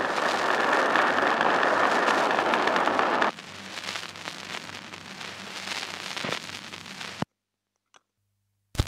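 Audience applause on an old, crackly speech recording, cutting off abruptly about three seconds in. After that only the crackle and hiss of the old recording remain, with about a second and a half of dead silence near the end.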